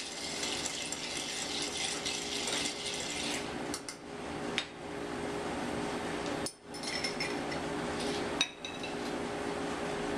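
Ice cubes rattling and clinking against a glass mixing glass as a bar spoon stirs a martini, a dense steady rattle for the first few seconds, then only scattered clinks.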